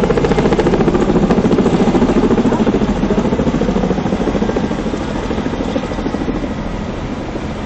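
Firefighting helicopter with a slung water bucket flying overhead, its rotor blades beating rapidly and steadily, slowly fading as it moves away.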